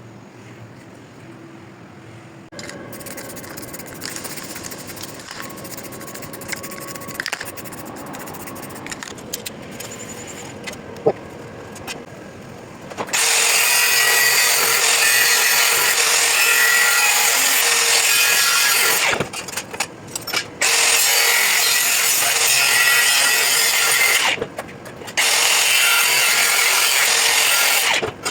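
A power tool working on metal parts during a restoration, starting about halfway through and running loud and steady, with two short breaks. Before that come quieter rubbing and scraping sounds.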